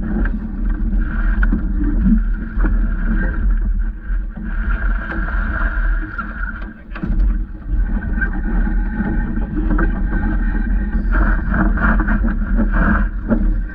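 Steady noise aboard a small VJ sailing dinghy under spinnaker: wind rumbling on the microphone and water moving along the hull, with a few brief knocks from crew handling gear and lines.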